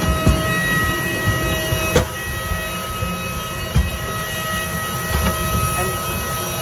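Steady hum and whine from a parked airliner and its apron equipment, with a few sharp knocks of footsteps on metal boarding stairs.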